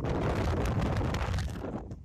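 Wind buffeting the microphone with road noise from a moving car, a dense low rumble that dies away near the end.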